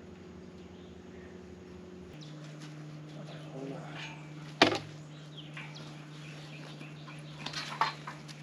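A steady low engine hum that drops in pitch about two seconds in. A single sharp knock comes near the middle, and a quick cluster of lighter knocks and rattles follows near the end.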